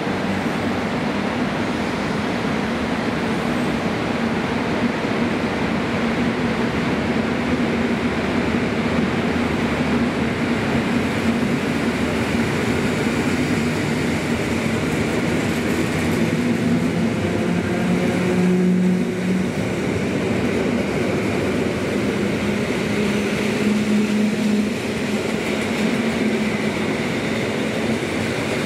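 Two-unit EN57 electric multiple unit accelerating past along the platform: a continuous rumble of wheels and traction motors, with a faint low hum that shifts in pitch as the carriages go by.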